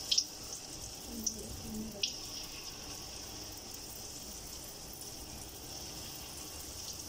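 Gulgule (sweet flour-batter balls) deep-frying in hot oil in a kadhai: a steady sizzling hiss, with a few sharp crackles in the first two seconds.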